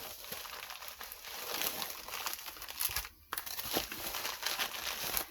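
Packaging crinkling and rustling as it is handled and unwrapped, in a run of fine crackles with a short pause about three seconds in.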